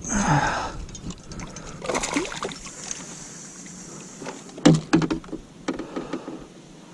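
Sharp knocks and rustling of handling in a small fishing boat, with the loudest cluster of knocks about four and a half to five seconds in.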